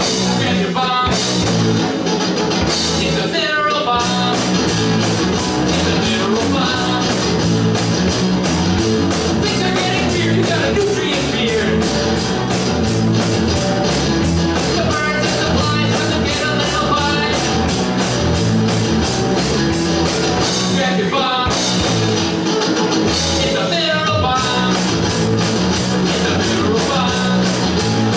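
A three-piece rock band playing live: electric guitar, electric bass and a drum kit, the cymbals keeping a fast, steady beat. The cymbals drop out twice for a couple of seconds while the guitar and bass carry on.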